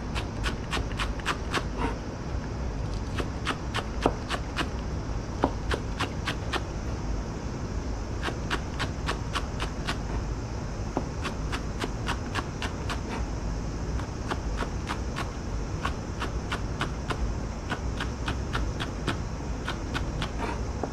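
Knife chopping green onions on a cutting board: quick, even taps about four to five a second, in runs broken by short pauses.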